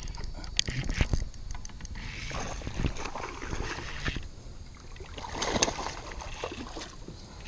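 Spinning reel being cranked while fighting a hooked bass: a run of sharp clicks from the reel and handling in the first second or so, then two longer stretches of splashing, rushing water.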